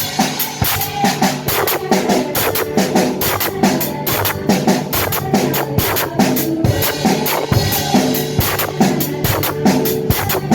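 Music with a steady drum-kit beat and pitched instrumental notes.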